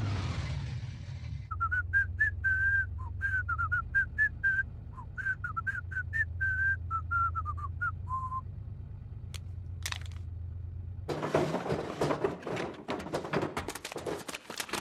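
A person whistles a short wandering tune over a steady low hum. About eleven seconds in, a dense run of rustling and clattering starts as bundles of banknotes are piled into a bag.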